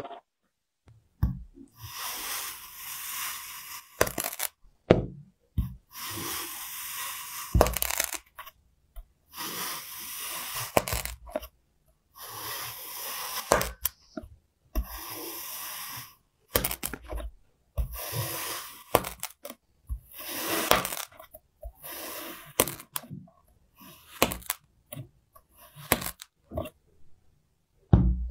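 Kinetic sand being sliced with a flat cutter, one slab after another: a series of scraping crunches, each lasting one to two seconds, with short gaps between them. Near the end come a few shorter knocks as a wooden mallet starts striking the sand.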